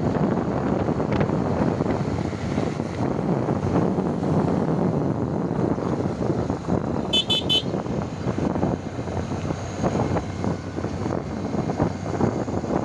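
Steady wind and road rumble from riding along a dirt road, with a short, high ringing tone about seven seconds in.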